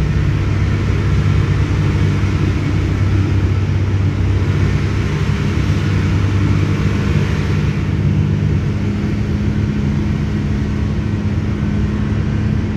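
UD Quester CKE 250 truck's diesel engine running steadily in first gear at normal throttle, heard from inside the cab as an even low hum, with a hiss over it that eases about eight seconds in.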